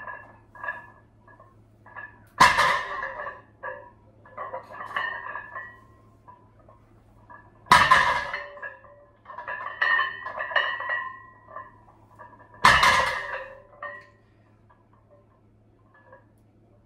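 A 160 kg barbell loaded with iron plates is set down on a gym floor three times during deadlift reps, about five seconds apart. Each landing is a heavy clank followed by the plates ringing and rattling, with lighter metallic clinks between the reps.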